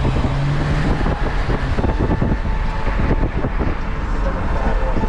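Car driving along: steady road rumble with wind buffeting the microphone in irregular gusts.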